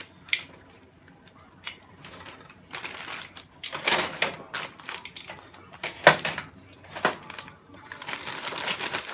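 Plastic zip-top bag crinkling and kitchen tongs clicking as pieces of fish are pulled from the bag and dropped into a bowl, in irregular bursts of rustling broken by several sharp clicks.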